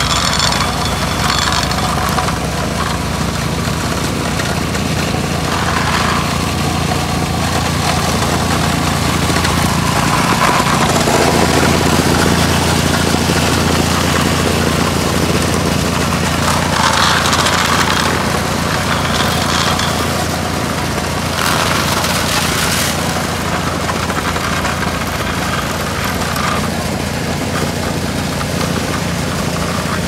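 Steady running of construction engines: a small vibratory plate compactor working the fresh asphalt alongside the diesel engine of an XCMG asphalt paver.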